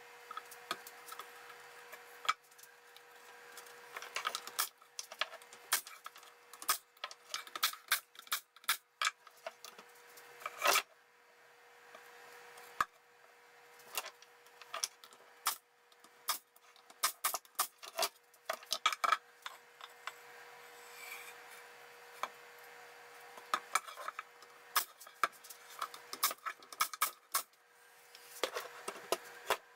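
Pneumatic nailer tacking glued wooden trim strips onto a plywood pallet deck: clusters of sharp shots and knocks, mixed with the rubbing and clatter of wood strips being handled and pressed into place.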